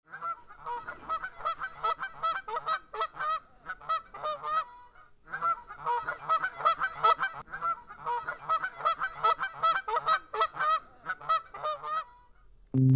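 A crowd of seabirds calling: rapid, overlapping honking calls, several a second, with a short lull about five seconds in. The calls stop shortly before a cut to music.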